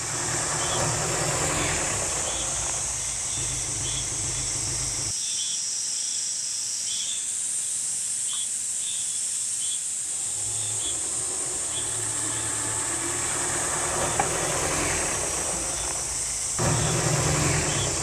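Outdoor ambience: a steady high-pitched hiss-like drone with short faint chirps repeating about once a second, over a low rumble that drops out about five seconds in and comes back near the ten-second mark.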